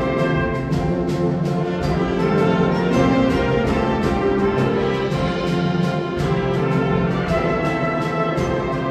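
High school wind ensemble playing a full passage of a concert band work: brass and winds hold rich chords at an even, fairly loud level, with frequent short accents.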